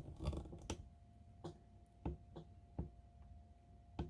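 Faint handling noise: light clicks and knocks, about seven of them at irregular intervals, over a faint steady hum.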